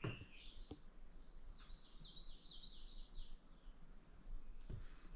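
A bird singing faintly: a quick run of about six falling chirps, with a few sharp clicks before and after it.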